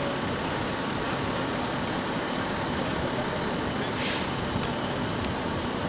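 Steady rumble of running vehicles, with a short hiss about four seconds in.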